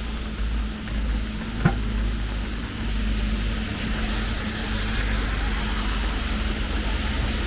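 Steady hiss of falling rain over a low rumble, with one sharp click about two seconds in.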